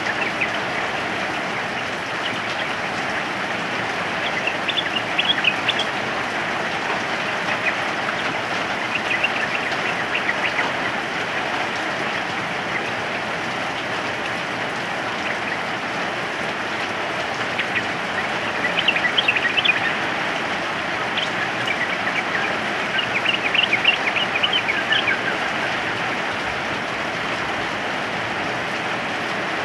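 Yellow-vented bulbuls (trucukan) calling in several short bursts of quick chirps over the steady hiss of rain.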